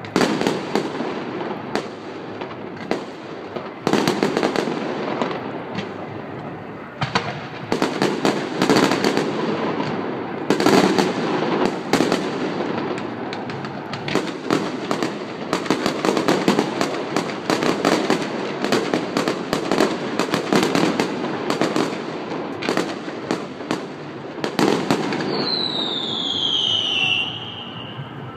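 Fireworks going off in a continuous barrage of sharp bangs and crackling, with a falling whistle near the end.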